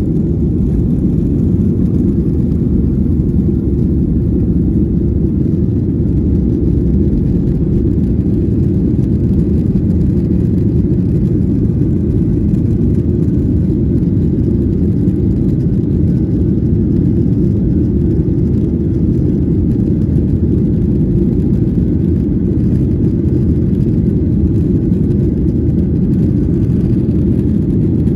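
Steady low rumble inside the cabin of a Boeing 737 airliner during takeoff and climb-out: jet engines at climb power and rushing air, with no change in level.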